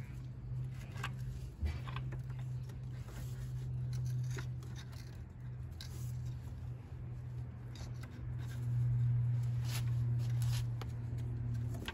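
Gloved hands working the plastic electrical connectors and wiring at the back of a Mazda Miata's ignition coil pack: scattered light clicks and scrapes over a low steady hum that grows louder near the end.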